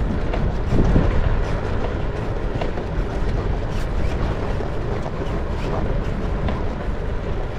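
Wind rushing over the microphone mixed with the bicycle's tyres rolling on coarse asphalt while riding, a steady noise with a few faint ticks.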